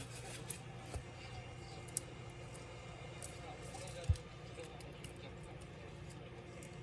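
Light clicks and taps of small tools and parts being handled during the disassembly of a Dell Latitude 3301 laptop, with a heavier knock about four seconds in, over a steady low hum.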